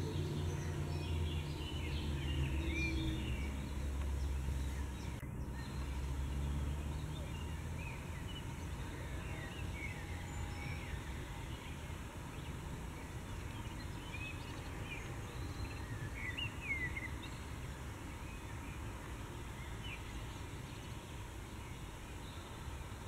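Outdoor ambience of small birds chirping in short scattered calls, with a low steady hum, like a distant engine, that fades out about a third of the way in.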